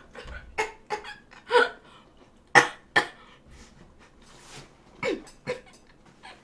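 A woman coughing repeatedly in short, separate bursts, loudest about two and a half to three seconds in, with two more about five seconds in.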